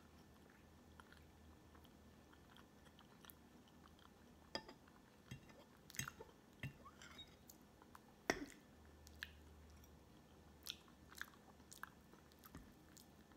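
Faint close-up chewing of soft cake, with small wet mouth clicks and a few sharp clicks of a metal fork against the plate, the sharpest about eight seconds in. The first few seconds are close to silent.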